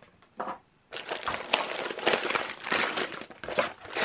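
Crinkly wrapping around a package rustling and crackling as it is lifted out of a cardboard box and handled, starting about a second in.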